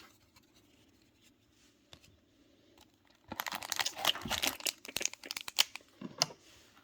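Trading card booster pack wrapper crinkling and tearing in a dense crackling burst of about three seconds, starting about three seconds in.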